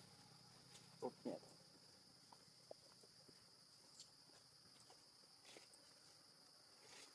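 Faint steady high-pitched insect drone. About a second in, two short, louder sounds come a quarter second apart.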